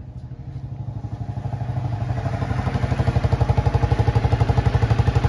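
Honda dual-sport motorcycle engine running at low speed with a rapid, even putter, about ten beats a second. It grows louder over the first three seconds as the bike rolls slowly closer, then holds steady.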